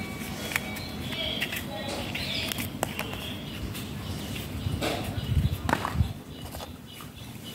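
Dried coconut shells and a piece of copra being handled on a tiled floor: scattered light clicks and knocks, with a few louder dull thumps about five to six seconds in.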